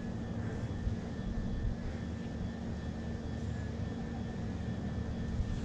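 Steady low drone of a small aircraft's engine overhead, a constant hum over a rumble that does not change.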